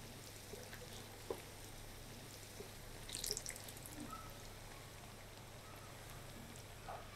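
Pakoras frying in hot oil in a cast-iron pan: faint bubbling with small crackles, and a short spell of spattering about three seconds in, plus a light click about a second in.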